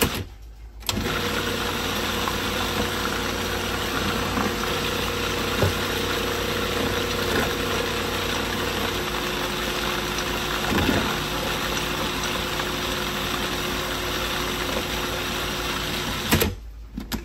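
Countertop food processor motor running, blending soaked puppy kibble and water into a puree. It stops briefly just after the start, starts again, and shuts off near the end.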